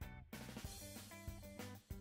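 Background music: drums with a run of short, plucked melody notes over a steady bass line.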